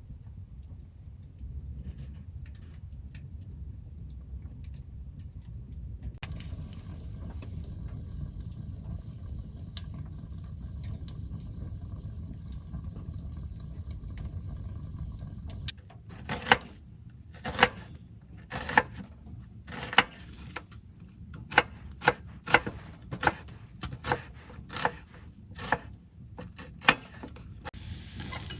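A low steady rumble, then from a little past halfway about fifteen sharp, irregularly spaced knocks and clinks.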